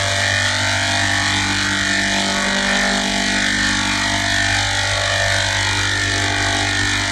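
A machine running steadily: an even motor hum of several constant tones over a loud hiss, holding the same level throughout.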